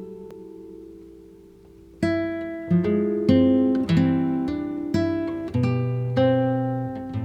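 Background music on acoustic guitar: a chord fading away, then plucked notes and strums picking up again about two seconds in.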